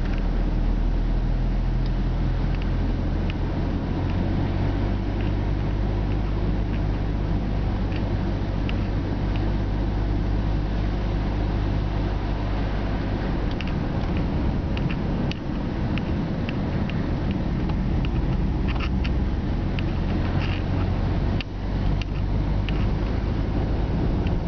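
Car driving along a winding road, heard from inside the cabin: a steady low engine and road hum with scattered light clicks and rattles.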